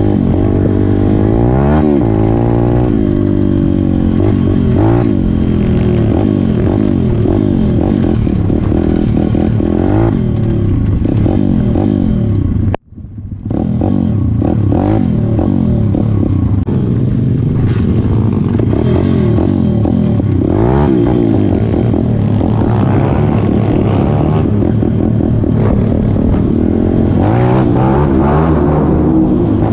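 Pit bike's small single-cylinder four-stroke engine being ridden hard, its pitch rising and falling again and again as the throttle is opened and closed. The sound breaks off for a moment about halfway through.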